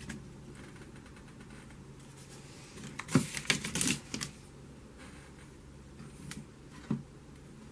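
A quick run of sharp clicks and rattles about three seconds in, then two single clicks near the end.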